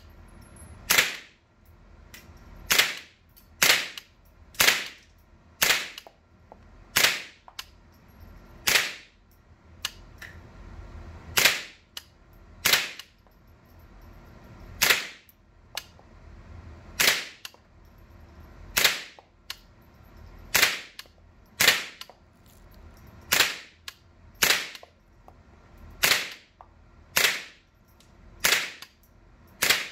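Semi-automatic AR-15 rifle firing .22LR through a conversion bolt: a slow, steady string of over twenty single shots, about one every one to two seconds with a few longer pauses. Each sharp crack is followed by a short echo in the indoor range.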